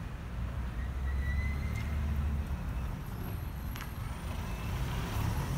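Car engines running as cars move slowly through a car park, a steady low rumble that swells a second or two in.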